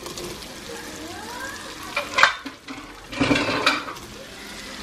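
Diced hot dog and salami dropped into a hot pan of sliced bell peppers frying in butter, sizzling steadily. The sizzle flares up loudly twice, about two seconds in and again about three seconds in, as the pieces land.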